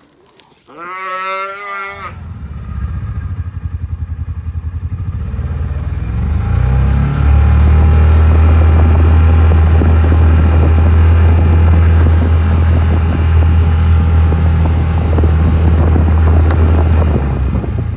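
A calf bawls once about a second in. Then the engine of the vehicle towing a wheeled roping-dummy sled runs steadily close by, getting louder from about six seconds in as it speeds up, and drops away just before the end.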